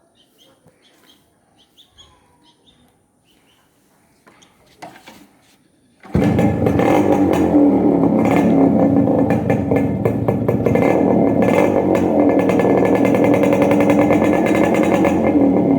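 Yamaha RX 100's two-stroke single-cylinder engine starting abruptly about six seconds in, then running steadily and loudly after a few quiet seconds.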